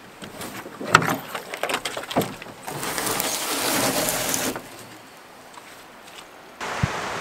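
Knocks and clatter of gear being handled in a canoe and dry brush cracking underfoot, the loudest knock about a second in, followed by a longer scraping as the Pack 13.6 canoe's hull is pulled up over the bank. Near the end a steady hiss of rain comes in.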